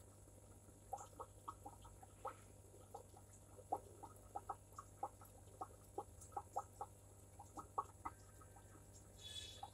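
An aquarium air pump hums steadily under irregular soft pops, a few a second, from air-lift bubbles in a sponge filter. A brief higher rasp comes near the end.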